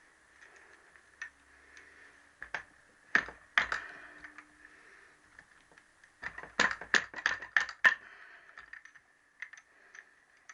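Metal-on-metal clicks and clinks of a spanner working on the big-end cap nuts of a Triumph T120R connecting rod: a few sharp knocks about three seconds in, then a quick run of clicks from about six to eight seconds in.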